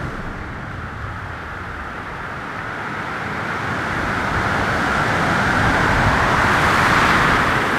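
Ocean surf breaking on the reef beach, a rushing noise that grows steadily louder over several seconds as a wave comes in.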